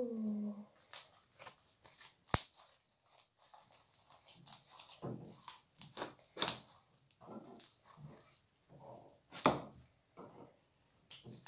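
Homemade borax slime being squeezed and worked in the hands: irregular sticky squelches with sharp little clicks and pops.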